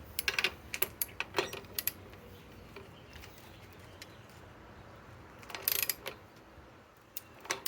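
Metal tools and sockets being handled: scattered sharp metallic clicks, with a short dense clatter about two-thirds of the way through and another near the end.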